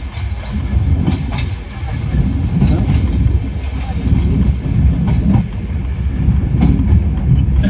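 Passenger train running, heard from inside a carriage at an open window: a steady low rumble of the wheels on the rails, with scattered sharp clicks as the wheels cross rail joints.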